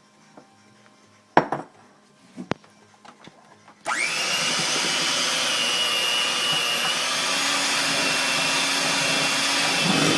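A few light knocks, then about four seconds in an electric mixer switches on and runs steadily at one speed, beating peanut butter cookie dough as the dry ingredients are worked into the wet.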